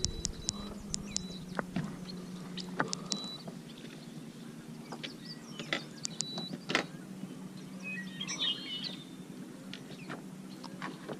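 Quiet outdoor ambience: short high bird chirps, with a cluster of chirps about eight seconds in, over a steady low hum and scattered sharp clicks.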